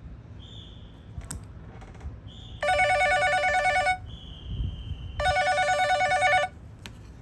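Telephone ringing twice with an electronic warbling ring, each ring lasting about a second and a half.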